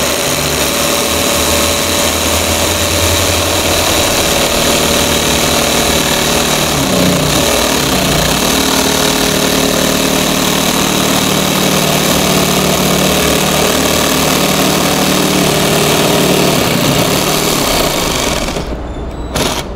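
Jigsaw running at full speed as its reciprocating blade plunge-cuts into an MDF board: the saw is tipped on the nose of its shoe and lowered onto the line so it bores in without a pilot hole. The steady saw noise stops about a second before the end.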